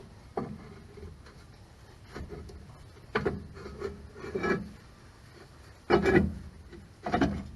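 Metal drum-brake parts being worked by hand: a series of short rasping scrapes and knocks, five or so, the loudest about six seconds in.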